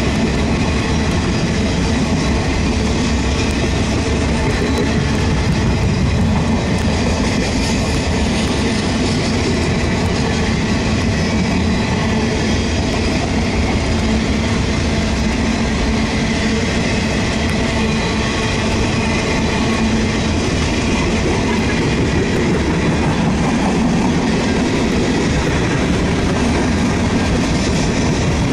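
Freight train cars rolling past close by, a steady loud rumble and rattle of steel wheels on the rails as auto-rack cars give way to boxcars and a tank car.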